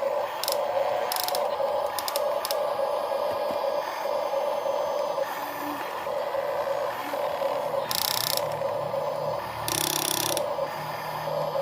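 Radio-controlled toy construction machine running its small motor and gears: a whir that pulses about one and a half times a second, with a few clicks in the first few seconds and two short hisses near the end.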